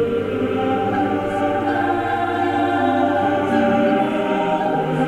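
Background choral music: voices holding long chords that shift every second or two.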